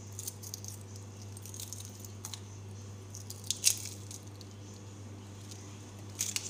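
Hard-boiled eggshell cracking and peeling off by hand: scattered small crackles and clicks, with a few sharper ones about three and a half seconds in and again near the end, over a steady low hum.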